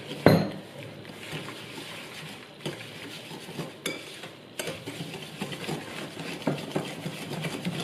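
Wire balloon whisk beating soft butter, sugar and a raw egg in a ceramic bowl: continuous wet stirring with the wires clicking against the bowl. A sharp knock comes just after the start.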